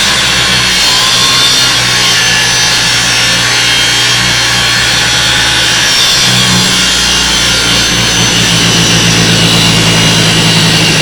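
A 9-inch angle grinder cutting steadily through the thick aluminium housing of another angle grinder: loud, continuous abrasive grinding over the motor's hum, which shifts slightly in pitch about six seconds in.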